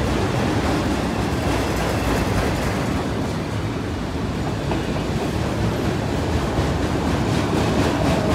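Freight train of enclosed autorack cars rolling past close by: a steady, unbroken noise of steel wheels running over the rails.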